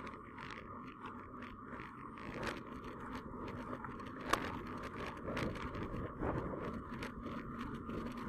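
Rubbing and scraping from a camera mounted on a moving bicycle, with many short, scattered clicks over a steady low rumble of riding.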